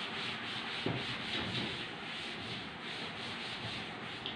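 A chalkboard being wiped clean with an eraser, a steady rubbing sound of the eraser strokes across the board.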